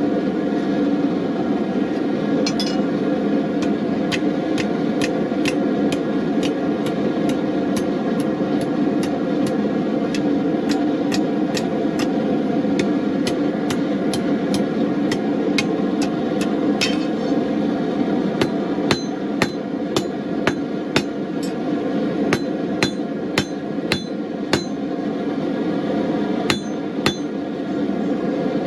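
Hand hammer striking hot steel on an anvil in a steady rhythm, about two blows a second, with a short metallic ring after some strikes. Under the blows runs the steady roar of a gas forge.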